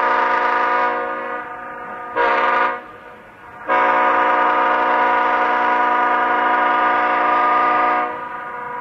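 Leslie S5T five-chime locomotive air horn sounding its chord: a long blast tails off in the first second, a short blast follows about two seconds in, then a long blast of about four seconds that trails off near the end.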